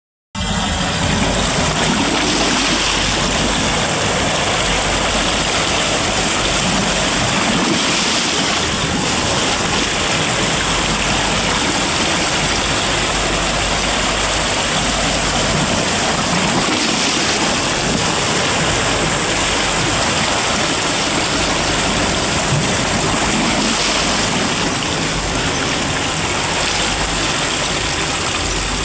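Sea waves and surf: a steady, continuous rush of water.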